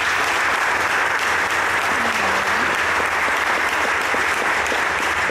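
Audience applauding steadily, with one pair of hands clapping close to the microphone.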